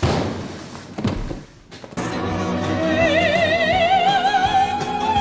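A loud yell at the start, then from about two seconds in a soprano voice singing opera over orchestral accompaniment: one high note with wide vibrato that rises and is held.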